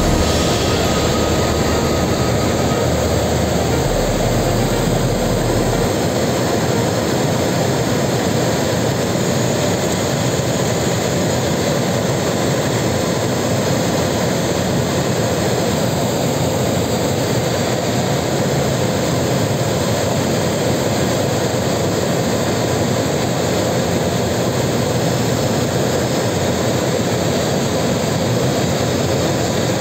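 Steady rush of airflow past the cockpit of an Esqual VM1 light aircraft gliding with its engine shut down and propeller stopped.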